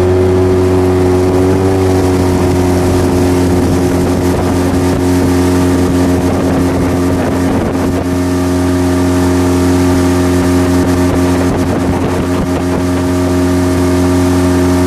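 Outboard motor pushing an inflatable PVC boat, running steadily at one even pitch after revving up just before, while the boat picks up speed.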